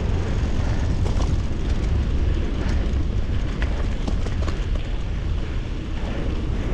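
Mountain bike riding along a forest trail: a steady low rumble of wind and tyre noise on the microphone, with scattered light clicks and rattles from the bike.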